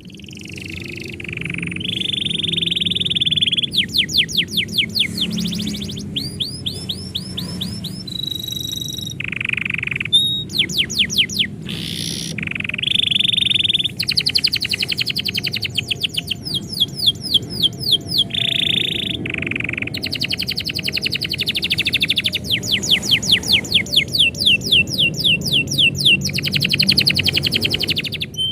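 Domestic canary singing a long, continuous song: fast rolling trills of rapidly repeated notes alternating with held whistled tones, with barely a pause.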